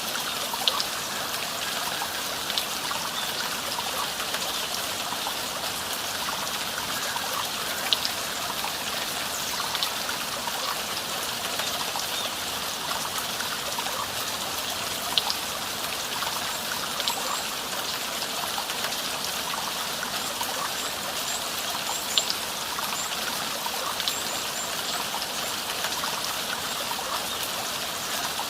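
Valley stream flowing steadily, with a few brief sharper splashy sounds every several seconds.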